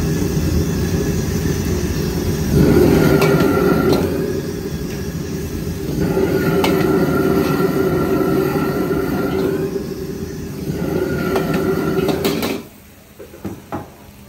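High-pressure gas wok burner running loud and steady under a wok, with a faint whistle in it that comes and goes. A metal ladle clinks against the wok a few times. Near the end the burner noise cuts off suddenly as the flame is turned down, leaving a few light clinks.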